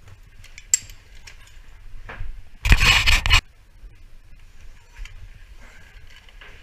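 Rope access gear being handled: a sharp metallic click about a second in, then a loud rubbing scrape lasting under a second near the middle, with faint rustling of rope and webbing around it.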